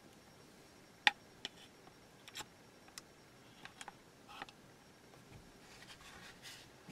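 Sharp plastic-and-metal clicks as locking pliers grip a bulb holder on the display unit's plastic housing and twist it a quarter turn counterclockwise, the loudest click about a second in, then a soft rustle of handling as the bulb and holder are pulled out.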